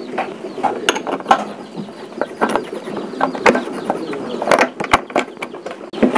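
Irregular metallic clicks and knocks as a scooter's front wheel is fitted into the fork and its axle pushed through the hub by hand.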